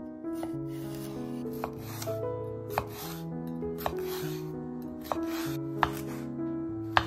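Chef's knife cutting through a fleshy aloe vera leaf on a wooden cutting board. About six sharp knocks of the blade on the board come roughly a second apart, with a rasping scrape of the blade drawn through the leaf between them.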